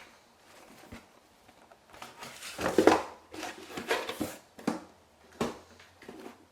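A cardboard shipping box being handled and opened: a series of separate rustles, scrapes and knocks of cardboard and packing material, the loudest about three seconds in.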